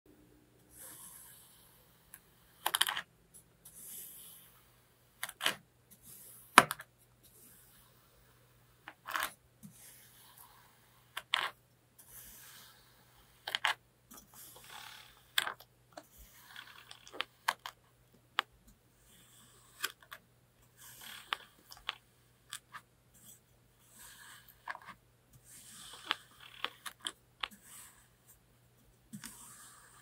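A metal fork cutting and scraping through a block of compacted kinetic sand: irregular soft crunches and crumbling, broken by sharp clicks.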